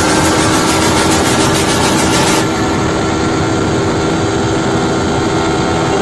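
Yamaha R15 V3 motorcycle riding at steady speed: an even engine drone under wind and road noise. The hiss eases a little about two and a half seconds in.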